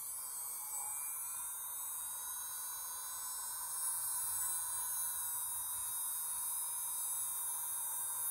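Small electric grinder running steadily while the top hinge plate of a Zippo lighter is ground to fit. It makes a faint, even whine with a high hiss.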